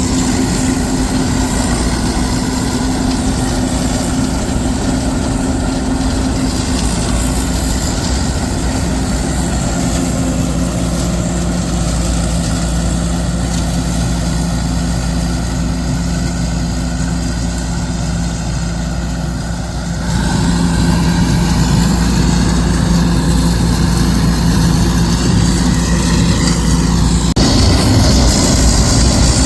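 Heavy diesel farm engine running steadily, its engine note shifting about ten and twenty seconds in, with a sudden change in the sound near the end.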